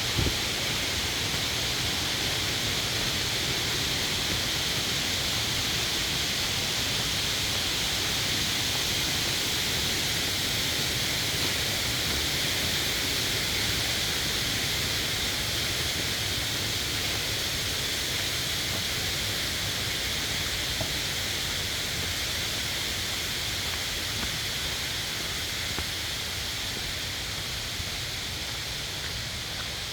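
Mountain valley stream rushing over rocks: a steady, even rush of water that fades a little near the end.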